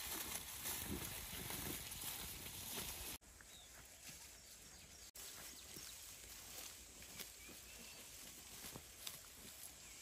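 Faint outdoor rural ambience with a few soft scattered sounds, changing abruptly about three seconds in and again about five seconds in.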